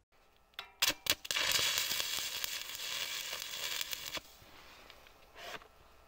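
Electric arc welding on steel: three short taps of the arc, then a steady crackling bead for about three seconds that cuts off abruptly, and one brief tap near the end.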